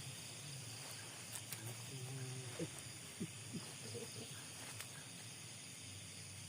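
Night-time outdoor ambience: a steady high insect drone, with a few faint short calls that drop in pitch around the middle.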